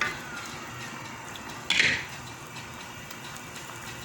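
A pot of fish in broth simmering on the stove, a steady bubbling hiss, with one brief, louder clatter of cookware about two seconds in.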